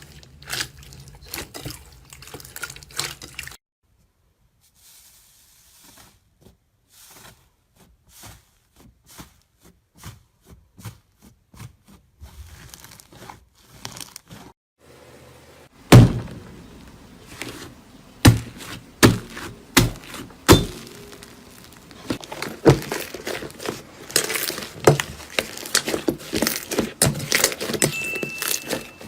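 Crisp crunching and cracking of a brittle ASMR material being crushed and snapped by hand. It comes as a run of sharp taps and cracks, with several loud knocks about halfway through and denser crackling near the end.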